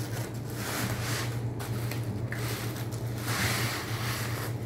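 Bubble wrap rustling and crinkling as it is pulled and unwound off a fishing rod, in several bursts of about a second each.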